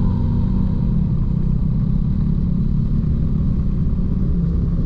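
Motorcycle engine running steadily at cruising speed on a dirt road, heard from the bike itself as a dense, unbroken low rumble.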